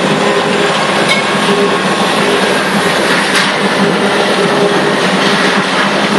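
Heavy diesel machinery running steadily: a continuous engine drone with rattling, and faint knocks about a second in and again after three seconds.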